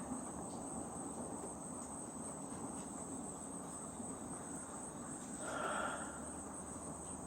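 Steady, high-pitched chorus of insects, like crickets, over faint outdoor background. About five and a half seconds in, a brief soft sound rises and fades.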